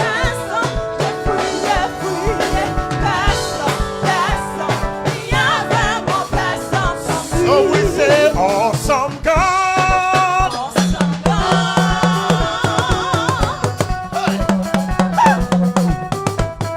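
Gospel choir singing with a live band, a drum kit beating steadily under the voices.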